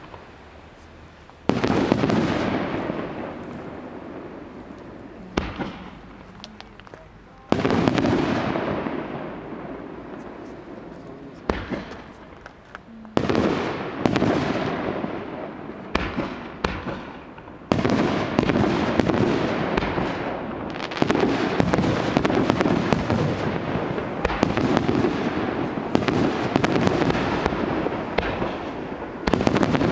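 Fireworks going off: a series of sudden bangs, each followed by several seconds of fading crackle. The bursts come faster from about halfway through, until the crackling barely stops.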